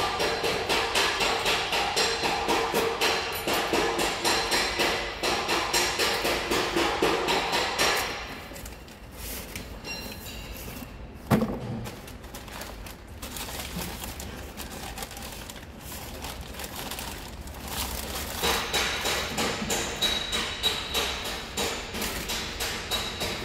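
Background music with a steady beat, dropping back for a while in the middle, with one sharp knock about eleven seconds in.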